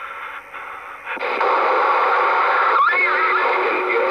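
CB radio speaker hissing with radio static: soft at first with a steady low hum, then about a second in a much louder rush of static comes in as a station keys up, with a faint warbling tone in the middle of it.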